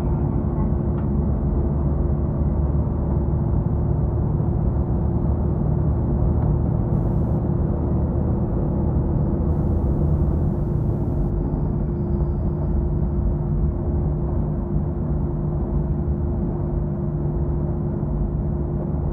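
KiHa 66 diesel railcar heard from inside the carriage: a steady low drone of engine and running gear with a constant hum tone.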